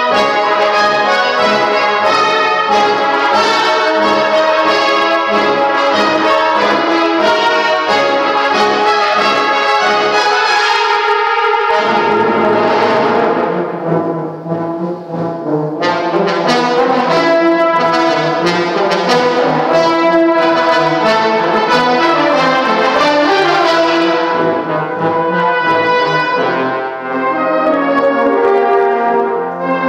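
A brass band playing a full-band passage of sustained chords, with cornets, horns, trombones and tubas together. About twelve seconds in, the low brass drops out for a few seconds of softer, thinner playing, then the full band comes back in.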